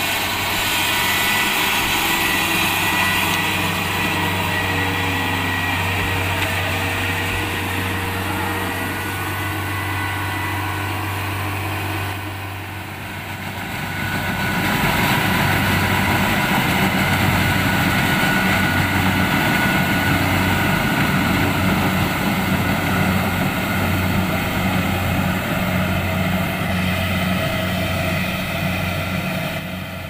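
Kubota DC-70 Plus combine harvester's diesel engine and threshing machinery running steadily with a constant low hum. The sound dips briefly about twelve seconds in, then comes back louder with a slight pulsing.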